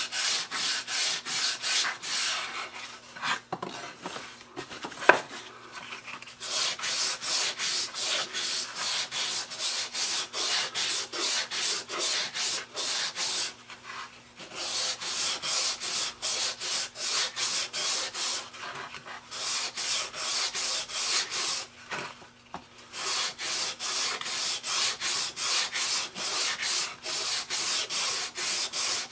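Hand sanding a carved wooden mini bat with 120-grit sandpaper: rapid, rhythmic back-and-forth rubbing strokes, broken by a few short pauses. A sharp knock sounds about five seconds in.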